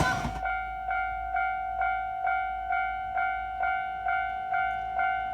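Japanese level-crossing warning bell ringing steadily, about two strikes a second at one steady pitch. A passing train's rumble cuts off about half a second in.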